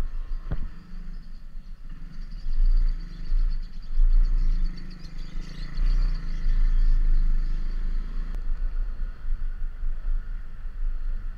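Motor scooter engine running while riding, louder for a few seconds in the middle, with a low wind rumble on the microphone throughout and one sharp click about half a second in.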